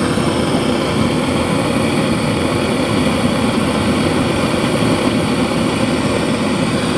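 Handheld gas blowtorch on a screw-on canister burning with a steady, even rushing noise. The flame is playing on the steel eye of a suspension arm, heating the bush housing so the bush can be knocked out.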